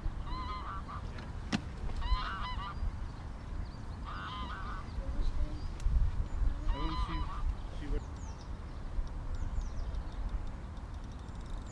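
Geese honking in four short bouts of calls during the first seven seconds, over a steady low rumble; afterwards only faint, brief high chirps remain.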